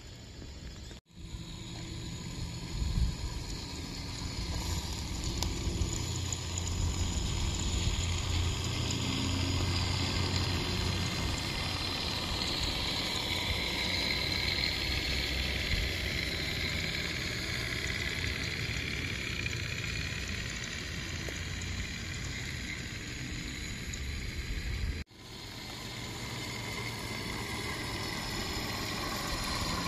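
Regner Class A Climax, a live-steam garden-scale geared locomotive, running with a train of log cars: steam hiss and the rolling of wheels on the rails, growing louder as the train nears.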